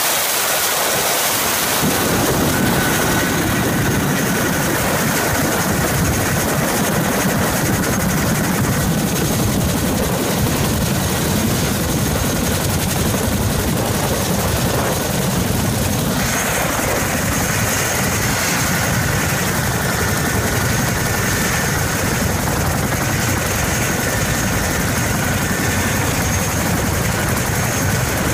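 CH-47 Chinook's twin turboshaft engines and tandem rotors running on the ground: a loud, steady rush of rotor and engine noise with a high, even turbine whine over it.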